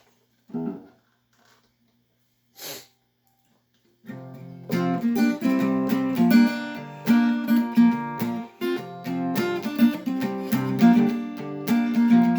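Quiet with two short soft noises, then about four seconds in an acoustic guitar starts playing a song's intro, strumming chords in a steady rhythm.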